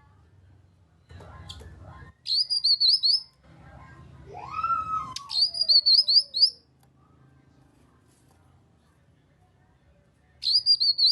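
Cucak kinoi calling in three short bursts of rapid, sharp high chirps, about half a dozen notes each, coming about two, five and ten seconds in. Between the first two bursts there is a lower slurred whistle that rises and then falls.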